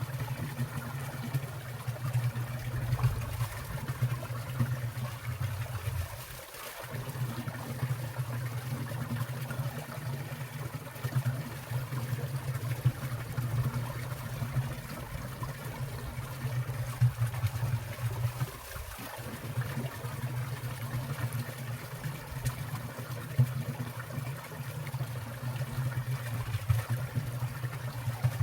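Winter valley stream running steadily over rocks and under icicles, a continuous low rushing with small splashes, dipping briefly twice.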